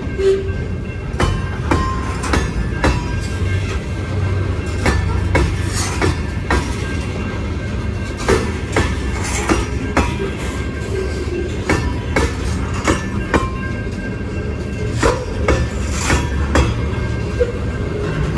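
Covered hopper cars of a fast frac sand train rolling past close by: a steady low rumble of steel wheels on rail, with frequent sharp clacks and knocks as the wheels pass over rail joints and the crossing.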